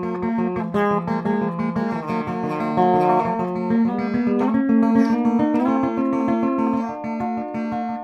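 Black Spanky (Davison) electric guitar with a P90 pickup and silicon-diode tone circuit, played through the clean channel of a Peavey Bandit amplifier: a steady run of quickly picked notes and chords.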